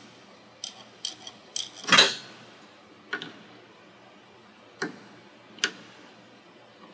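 Needle-nose pliers working a steel cotter pin out of the castle nut on a garage door operator's clutch shaft: irregular sharp metallic clicks and taps, the loudest about two seconds in.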